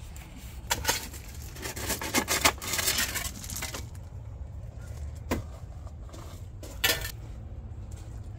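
Hard plastic and fibreglass parts of a water softener knocking and clattering as they are handled: a few knocks about a second in, a busier run of clatter from about two to four seconds in, then two single knocks later, over a steady low rumble.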